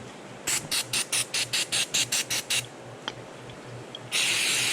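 Pressurised gas hissing: about ten quick short hisses, around five a second, then a steady loud hiss that starts about four seconds in.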